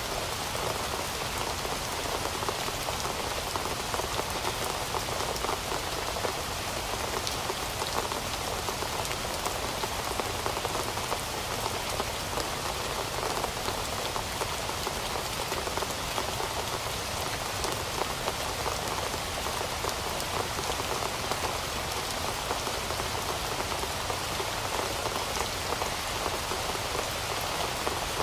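Steady rain falling, a continuous patter of many drops on surfaces with no let-up.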